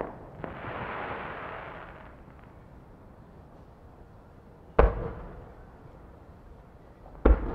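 Fireworks going off: a crackling hiss for about a second and a half near the start, then two sharp booms about two and a half seconds apart, each followed by a rumbling echo.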